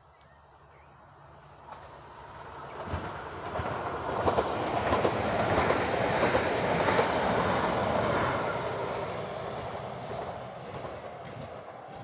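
Electric multiple-unit passenger train approaching and passing, wheels clicking over the rail joints, loudest in the middle and fading away near the end.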